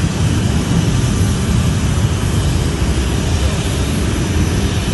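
Steady jet aircraft engine noise on an airport apron: a loud, deep, even rushing sound with no breaks.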